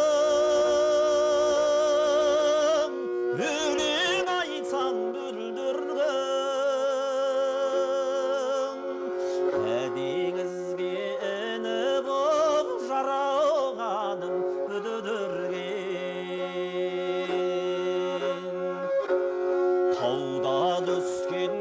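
A singer holds the last note of a Kazakh folk-song phrase with a wide vibrato for about three seconds. A kobyz, the Kazakh bowed fiddle, then plays a wavering melodic interlude over a steady drone.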